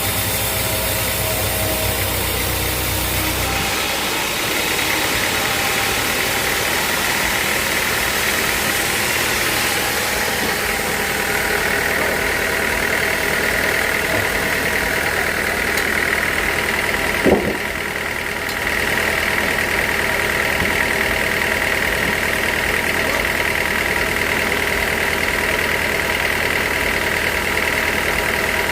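Sawmill machinery running steadily, with one sharp knock about seventeen seconds in.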